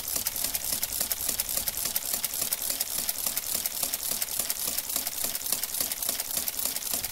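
Olivetti Multisumma 20 electromechanical adding machine, covers off, running under its motor through a multiplication: a rapid, even mechanical clatter of many strokes a second. Each stroke is one machine cycle as the multiplier steps its racks back one notch at a time, adding the number over and over.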